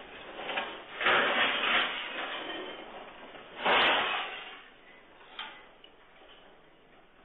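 Falling debris and rattling furniture in a room shaken by an earthquake: loud crashing, clattering bursts about a second in and again near four seconds, then dying away to faint knocks.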